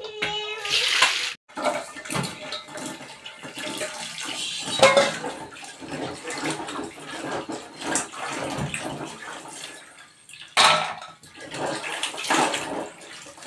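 Jackfruit seeds being washed by hand in water: continuous splashing and sloshing with many small clicks of seeds knocking together.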